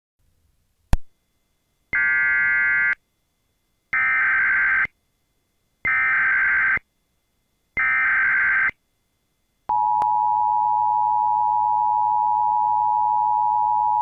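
Emergency Alert System alert: a click, then four one-second bursts of digital data tones (the SAME header) about two seconds apart. Just under ten seconds in, the steady two-tone EAS attention signal starts.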